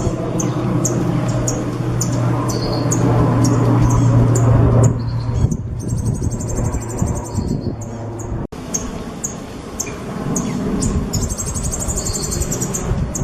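Songbird singing: a fast string of sharp, high chirps, broken twice by a longer buzzing trill, over a steady low hum and background din.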